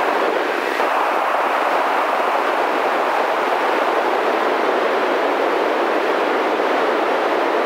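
Steady FM static hiss from a ham radio's speaker, with no voice in it: the AO-91 satellite's downlink has faded out as the satellite sinks to about 4 degrees above the horizon.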